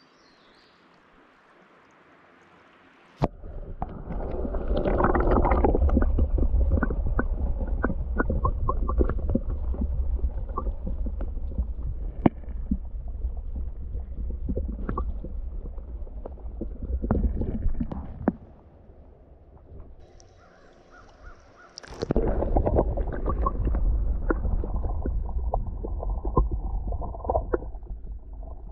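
Muffled sound of a shallow gravel creek heard underwater through an action camera's housing: a dense low rumble of flowing water scattered with small clicks and crackles. It starts with a sharp knock about three seconds in, after a few seconds of faint hiss. It drops to a quieter hiss for a few seconds before the rumble returns near the end.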